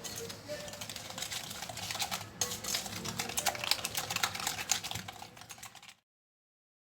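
Eggs, sugar and lemon zest being beaten by hand in a mixing bowl: rapid, dense clicking of the utensil against the bowl. The sound cuts off abruptly near the end.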